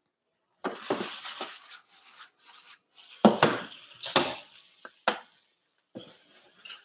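Cookware clattering at the stove: a utensil clinking and knocking against a pan, with scraping between the knocks and four or five sharp clinks.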